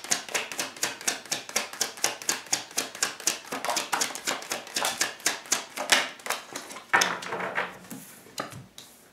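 A tarot deck being shuffled by hand, the cards clicking against each other in a quick, even run of about five a second. About seven seconds in the shuffling stops and there is a longer swish as a card is drawn and laid on the table.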